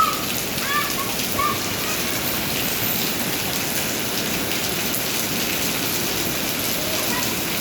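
Steady rain pouring down, a dense even patter. A few short high-pitched sounds rise over it in the first second and a half.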